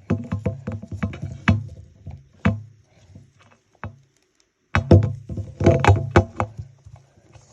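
Close-up handling noise from digging into a toy doll's hair to free a hidden surprise: irregular taps, knocks and rustles of plastic, with a brief pause about four seconds in before the tapping starts again.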